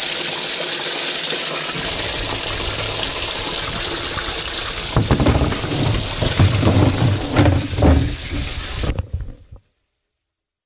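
Water spraying from a bait tank's pump spray bar and splashing into the tank, a steady rushing hiss. About halfway through, low bumps and knocks break in over the water, and near the end the sound cuts off abruptly.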